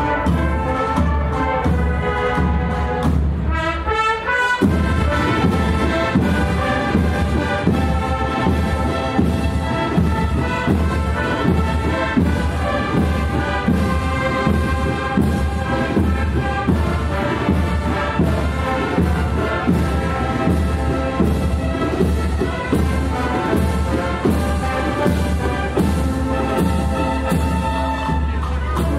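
Andalusian processional brass band (agrupación musical of cornets, trumpets, low brass and drums) playing a processional march, brass melody over a steady drum beat.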